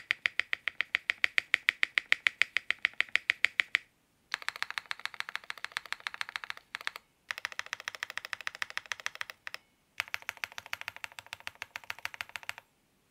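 Fast, steady typing on a ZoomTKL mechanical keyboard fitted with Ceptify linear switches (Snowfox and Rooster), in four short takes split by brief silences; each take has a slightly different tone, as stock and lubed switches are compared.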